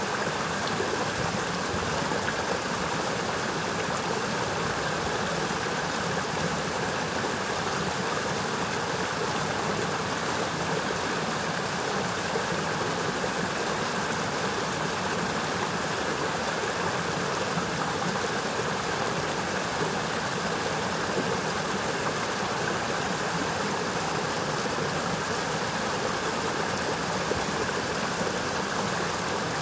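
Forest brook rushing steadily, its water tumbling downhill in an even, unbroken noise.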